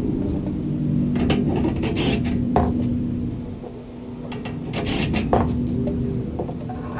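Sheet-metal grill frame parts and hardware being handled: a few separate metallic clinks, rattles and scrapes, over a steady low hum.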